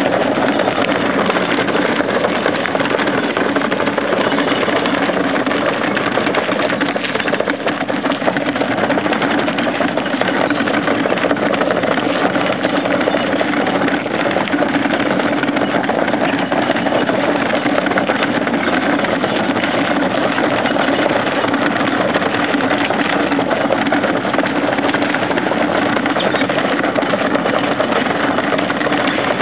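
Plastic wheelie bins being wheeled over a gravel driveway, their wheels rolling and rattling on the stones in a loud, steady rumble.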